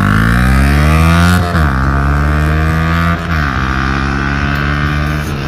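Yamaha MT-15's single-cylinder engine, breathing through an aftermarket exhaust with a dB killer fitted, accelerating at full throttle: the pitch climbs, drops with an upshift about a second and a half in and again about three seconds in, then climbs once more.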